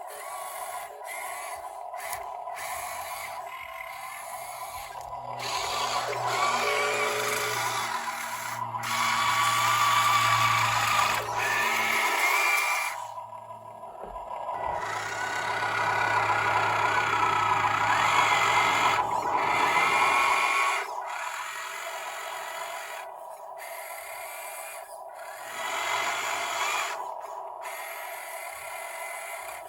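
Small electric motors and gearboxes of radio-controlled construction models whining as they work, their pitch rising and falling. They are louder from about 6 to 20 seconds in, then settle to a quieter steady whine.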